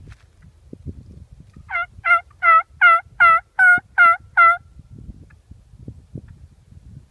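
A bird calling loudly, a series of eight harsh pitched notes, each falling slightly, about two and a half a second for about three seconds, over faint low rustling.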